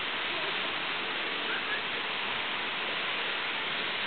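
Steady rushing of running water, with a faint, short rising chirp about a second and a half in.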